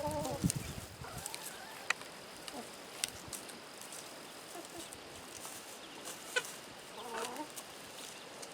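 Backyard chickens clucking, with a short call at the start and another around seven seconds in, and a few sharp clicks between. Wind rumbles on the microphone in the first second.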